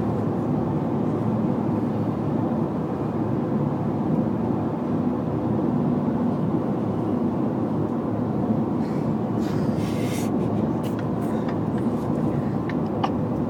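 Steady rumble of road and engine noise heard inside a moving car's cabin, with a few faint clicks in the last few seconds.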